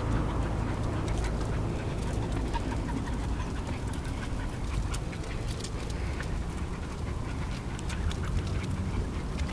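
Jack Russell terriers out on a street walk: scattered light clicks and ticks over a steady low street rumble.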